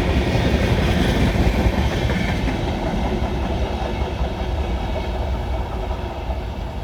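Indian Railways express train running through a halt without stopping: steady wheel-and-track noise from the passing coaches, slowly growing fainter.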